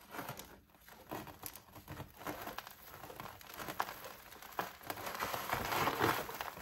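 A soil-caked dahlia tuber clump being pulled apart by hand: irregular crackling, rustling and tearing as dry soil crumbles onto cardboard and roots give way. It gets louder toward the end.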